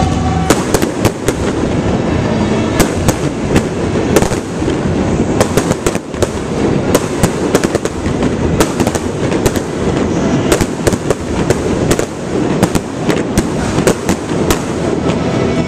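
Aerial fireworks display: a rapid barrage of overlapping bangs and crackles from shells bursting, several a second, over a continuous rumble.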